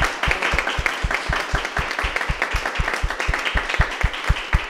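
A small group applauding, with one pair of hands near the microphone clapping steadily about four times a second above the rest.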